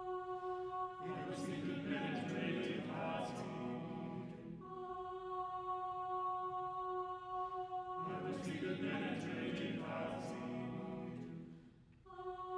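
A cappella chamber choir singing: a held unison note twice gives way to a dense mass of many overlapping voices with sharp hissing consonants. After a short lull near the end, the held note returns.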